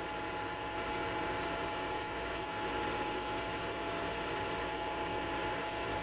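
John Deere tractor engine heard from inside the cab, running at a steady pace under load while pulling a mole plough, with an even drone and a constant whine.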